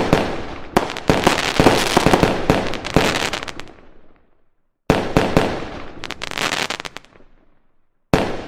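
Fireworks going off: dense rapid bangs and crackling that die away, then a second run of bangs that fades out too, with sudden silence after each. A fresh run starts near the end.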